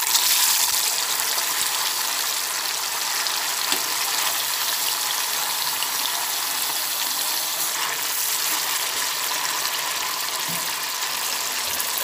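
Masala-marinated beef liver pieces frying in hot oil: a loud sizzle that starts suddenly as the pieces go in and carries on steadily.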